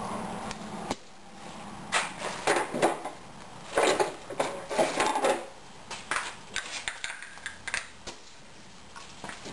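Irregular metallic clinks and clatter of air tools being handled and set down, after about a second of faint steady hum.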